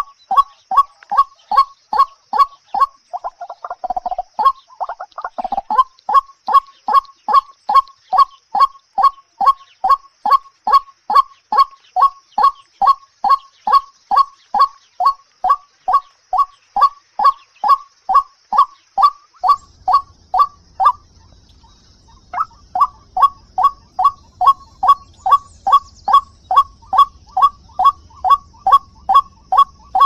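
A white-breasted waterhen's call: one short, harsh note repeated very evenly about three times a second, breaking off for about a second a little after twenty seconds in. Early on a brief rustling noise sounds under the calls for a few seconds.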